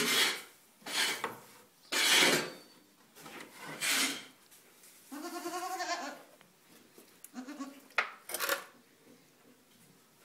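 Toggenburg goat kid bleating: one wavering call lasting under a second, about halfway through, and a shorter one soon after. Several short rubbing noises close to the microphone come before and after.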